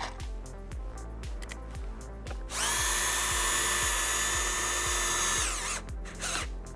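Festool TXS cordless drill driver running at a steady high speed for about three seconds, a high whine from its motor and gearbox, then spinning down as the trigger is released. Background music with a steady beat plays underneath.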